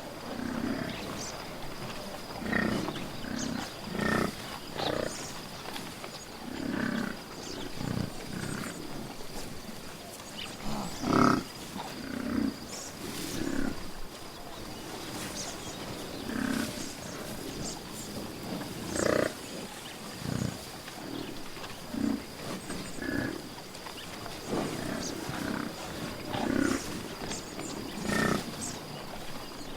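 A large wild animal giving short, low grunting and growling calls every second or two, the loudest about a third of the way in, over a faint steady high-pitched tone.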